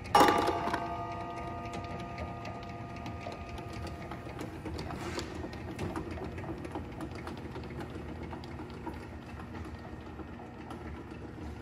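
A labeled tube drops into a plastic basket of tubes against the stainless steel table with a sharp clatter and a brief ring, just after the start. Then a tabletop tube labeling machine runs steadily, its conveyor and label applicator whirring with light, frequent ticks.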